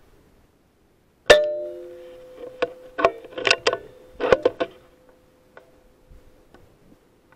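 An air rifle firing once, a sharp crack with a metallic ring that fades over about a second. It is followed by a quick run of metallic clicks and clacks, typical of the rifle's bolt being cycled to load the next pellet.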